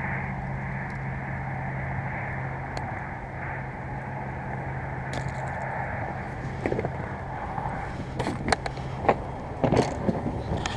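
Clicks and knocks of fishing tackle being handled in a small plastic jon boat as a lure is swapped, loudest in a cluster of sharp knocks over the last few seconds. Under them runs a steady low hum that fades near the end.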